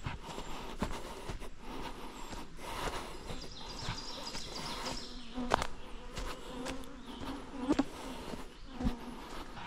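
A flying insect buzzing close by, a low hum that comes and goes and is strongest in the second half, along with the crunch of walking footsteps.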